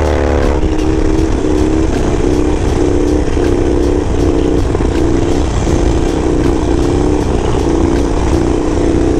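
Harley-Davidson Sportster 1200 Roadster's air-cooled V-twin held on the throttle through a wheelie, with wind rushing past. Its pitch falls in the first half-second, then holds steady with small regular rises and dips.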